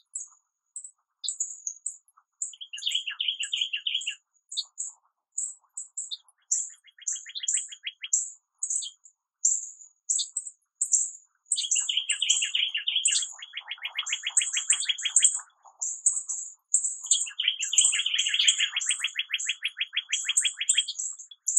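Small songbirds calling from within an American holly: a steady stream of short, very high-pitched chirps, several a second, broken by rapid trills, short ones early and two long, loud ones in the second half.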